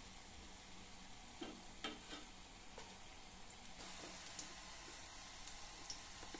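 Batter-coated baby corn pieces deep-frying in hot oil, a faint steady sizzle that grows a little louder about four seconds in. A few light clicks come in the first half, as a metal slotted spoon lifts the fried pieces out of the pan.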